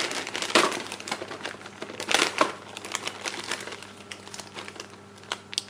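Clear plastic bag holding model-kit parts trees crinkling in irregular bursts as it is handled and opened, loudest about half a second and two seconds in.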